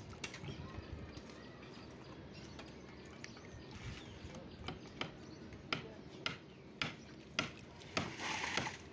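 A series of short, sharp knocks, one roughly every half second in the second half, from work on the wooden shuttering of freshly cast concrete stair steps.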